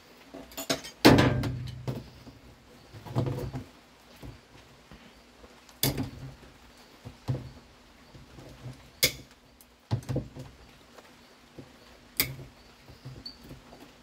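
About six scattered knocks and clicks of plastic and metal, the loudest about a second in, as a stuck suspension rod is worked loose at the corner of a Brastemp Ative top-load washing machine's cabinet.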